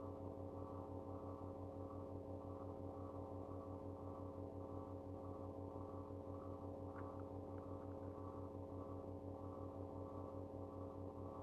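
A steady low electrical hum of several held tones, pulsing gently about twice a second, with two faint ticks a little past the middle.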